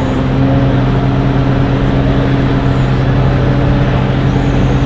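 XCMG XC7-SV12 compact skid steer loader's diesel engine running steadily, a constant low hum at an even pitch.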